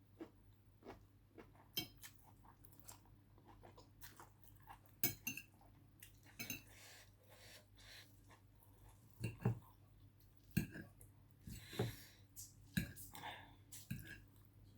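Close-miked chewing of stir-fried rice noodles: a string of soft wet mouth clicks and smacks at an irregular pace, with a few louder ones in the second half.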